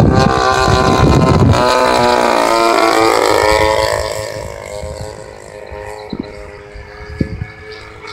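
Model P-47 airplane's engine and propeller passing close overhead, loud at first, its pitch falling about two to three seconds in as it goes by, then fading to a distant drone. Wind buffets the microphone during the first second and a half, with a couple of short thumps later.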